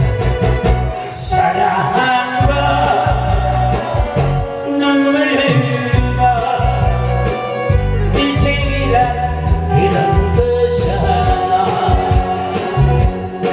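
A live song: singing over a loud backing track with a steady beat, played through a PA system.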